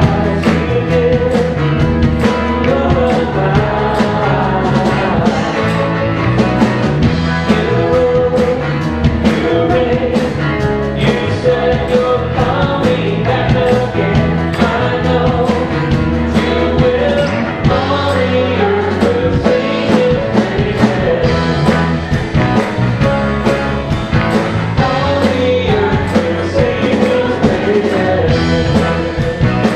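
Live song: a man singing to a strummed acoustic-electric guitar with a steady beat, with a woman's backing vocal.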